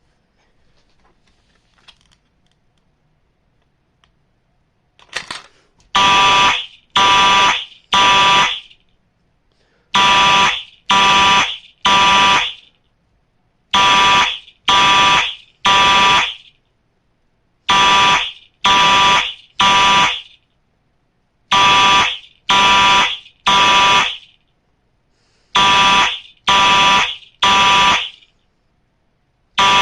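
Fire alarm going off about five seconds in, sounding the temporal-three evacuation pattern: three long blasts, a pause, and again, repeating about every four seconds.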